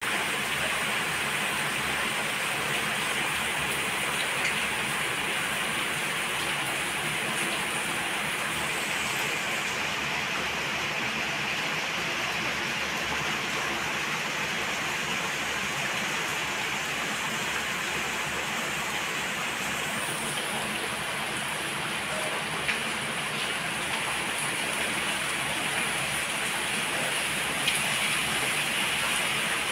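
Heavy rain falling steadily, with a couple of sharper spatters near the end.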